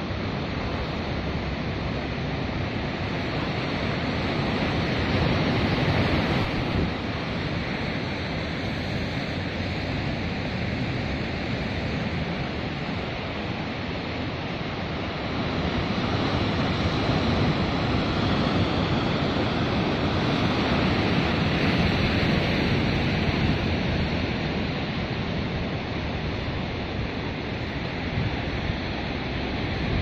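Ocean surf breaking and washing over rocks below a cliff, a steady rushing that swells louder a few seconds in and again for several seconds past the middle.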